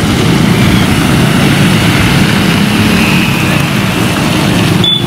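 Steady low rumble of motorcycle engines riding through shallow floodwater on a waterlogged road, with a brief break just before the end.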